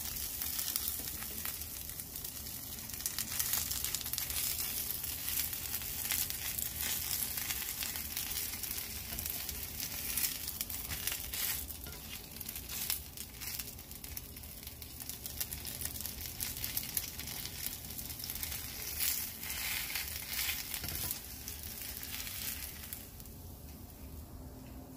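Bánh xèo, a thin rice-flour and turmeric crêpe, frying in oil in a non-stick skillet: a steady sizzle full of fine crackles as the lacy edges crisp up. The crackling dies down near the end.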